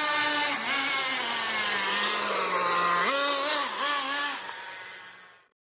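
Tornado S30 buggy's small engine running at high revs, its pitch sinking slowly over a couple of seconds, then jumping back up about three seconds in with a few quick rises and dips. It fades and cuts off shortly before the end.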